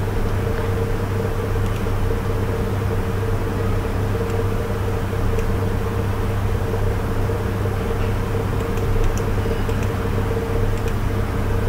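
Steady mechanical hum over an even hiss, with a constant low drone and a higher steady tone, and a few faint clicks.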